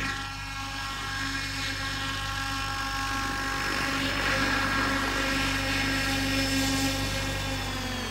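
Banshee 850 RC helicopter's rotor head and motor whining steadily as it hovers low and settles onto the grass; near the end the pitch starts to fall as the rotor spins down after landing.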